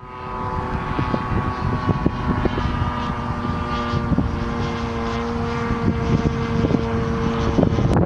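Radio-controlled model airplane's motor and propeller flying past at steady throttle, giving a constant-pitched drone that stops near the end.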